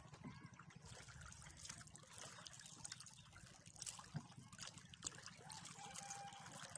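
Faint trickling and lapping of water around a small wooden outrigger boat moving through calm shallow water, with many fine ticks and a low steady rumble underneath.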